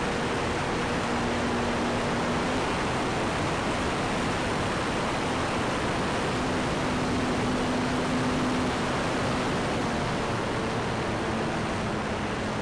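Steady rush of airflow over the onboard camera of an electric FPV model plane in flight, with the propeller's faint low hum coming and going underneath.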